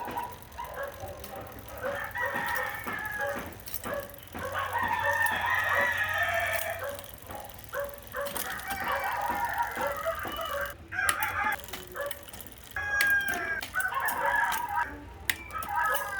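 Rooster crowing repeatedly, about four long crows in turn.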